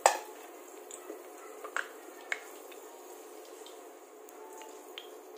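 Potato slices deep-frying in oil in a stainless steel pot, a steady sizzle, with a wooden spatula knocking sharply against the pot a few times, loudest right at the start.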